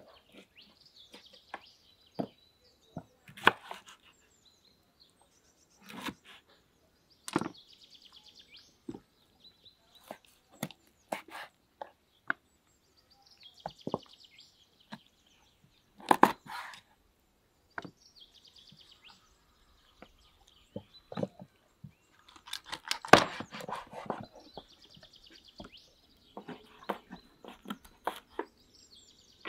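A large kitchen knife cutting up raw chicken on a wooden cutting board: scattered sharp knocks of the blade striking the board, with a dense cluster of chops about two thirds of the way through. Birds chirp now and then in the background.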